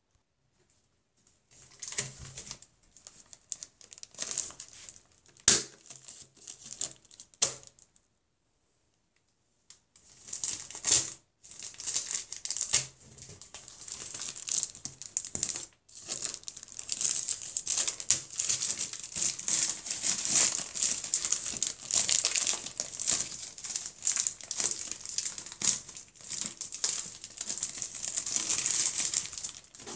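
Plastic wrapping crinkling and rustling, in scattered bursts at first and then continuously from about ten seconds in, as the shrink-wrap is handled and pulled off a new canvas.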